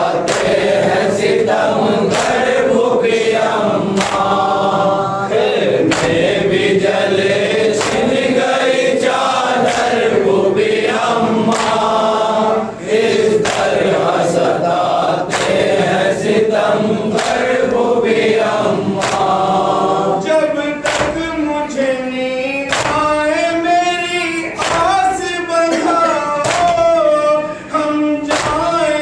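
Group of men chanting a Muharram noha (lament) together while beating their chests in unison, the slaps landing about once a second. From about two-thirds of the way through, a single lead voice carries the chant with a wavering melody over the steady chest-beating.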